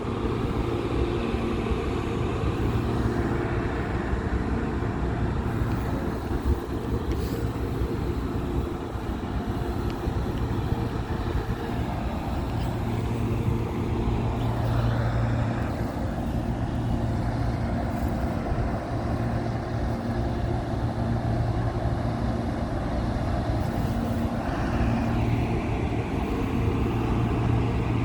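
Diesel locomotive engine running steadily, a continuous low drone over rumbling noise.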